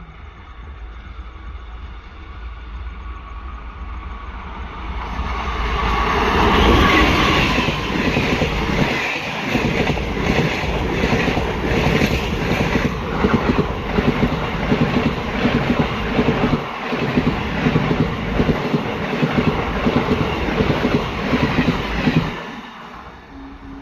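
Train hauled by an Indian Railways electric locomotive passing close by. It builds up over the first few seconds, then the wheels clatter over the rail joints in a steady, regular beat as the coaches roll past, and it falls away abruptly near the end.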